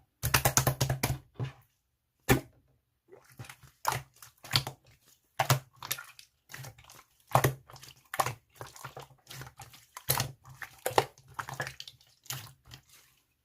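Slime being squished and pressed by hand, giving sticky crackling and popping clicks in irregular bursts, a dense run at the start and then clusters every second or so.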